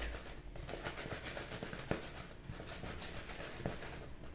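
Hot fried dough fritters being rolled and scraped around in a dish of granulated sugar and cinnamon: a steady gritty rubbing with small clicks and a couple of sharper taps.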